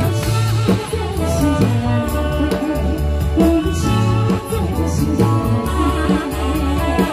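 Live band with drum kit and keyboard playing a pop song while a woman sings into a microphone over the PA, with a steady bass beat under the vocal line.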